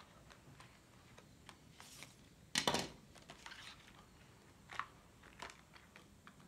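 Plastic blister pack of a gel-pen set being opened and handled: scattered soft crinkles and clicks, with one louder crackle about two and a half seconds in, as the pens are pulled out.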